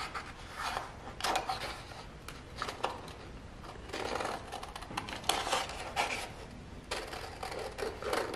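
Scissors snipping through a sheet of paper in a string of short, unevenly spaced cuts.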